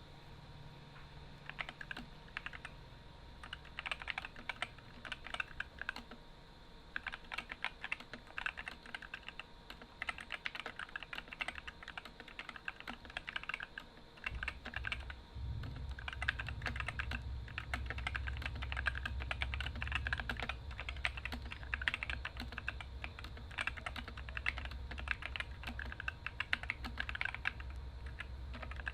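Typing on an Epomaker SK64 mechanical keyboard with stock, unlubed Gateron optical red linear switches and ABS keycaps: fast runs of keystroke clacks in uneven bursts.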